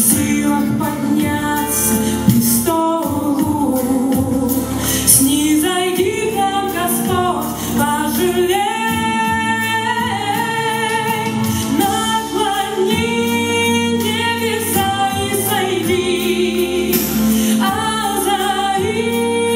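Worship song: singing over a steady instrumental backing.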